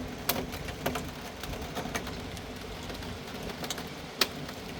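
Steady rain falling, with individual drops tapping irregularly on a nearby surface and one sharper tap about four seconds in.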